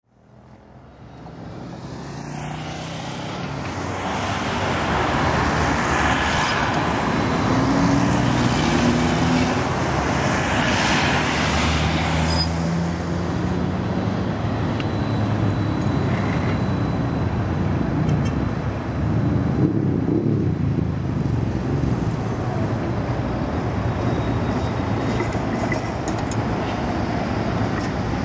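CAF Urbos 3 tram rolling along its street track, mixed with steady road traffic noise, fading in over the first few seconds.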